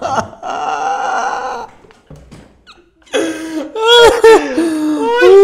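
Two young men laughing hard. There is a short lull about two seconds in, then loud, high-pitched laughter.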